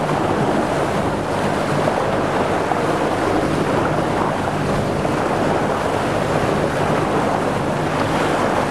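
Fishing boat under way: its engine running steadily beneath the rush of the wake along the hull, with wind on the microphone.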